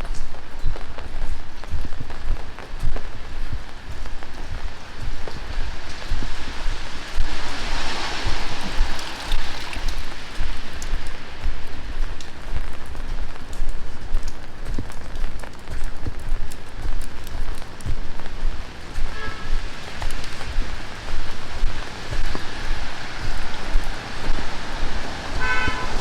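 Heavy rain falling steadily on the street and surrounding surfaces. About eight seconds in, a vehicle passes on the wet road, and a short pitched beeping tone sounds twice, about two-thirds of the way through and near the end.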